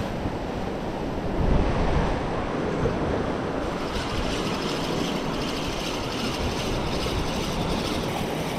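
Sea surf washing and breaking, with wind buffeting the microphone.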